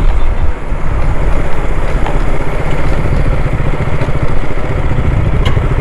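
Motorcycle engine running steadily while riding along at road speed.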